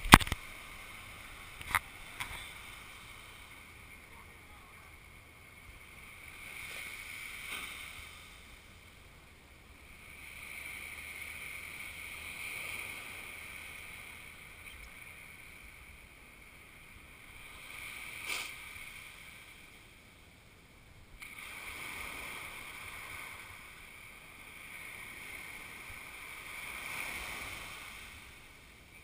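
Small ocean waves breaking and washing up on a sandy beach, the surf rising and falling every few seconds. A few brief sharp knocks, one near the start, one about two seconds in and one about two-thirds of the way through.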